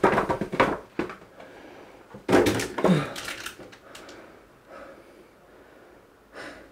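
Rummaging and handling noise: boxes and objects being grabbed, shifted and set down in two hurried bursts, with a knock about a second in.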